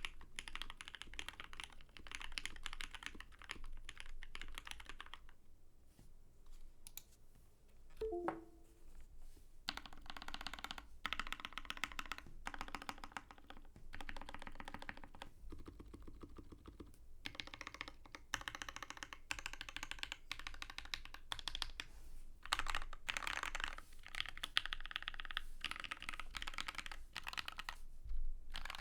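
Typing on a TX EO-87 Crystal tenkeyless mechanical keyboard with a brass plate, lubed and filmed Lavender switches and GMK Botanical keycaps: runs of fast keystrokes broken by a few short pauses. A single louder keystroke with a brief ring stands out about eight seconds in.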